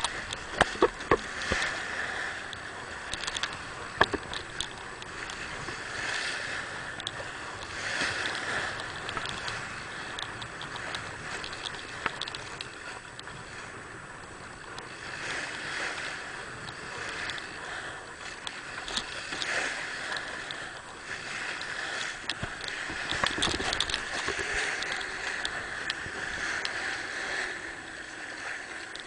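Water rushing and splashing along the hull of a sailing boat under way, swelling and easing every few seconds as waves pass. A few sharp clicks come in the first few seconds.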